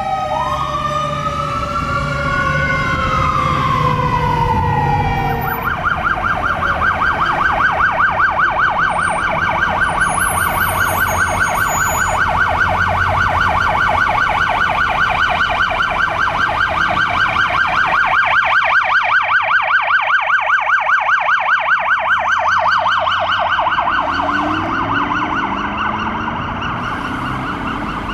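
Emergency vehicle electronic siren over the rumble of its engine: a slow wail sweep up and down, then about five seconds in it switches to a fast yelp that runs on and fades near the end.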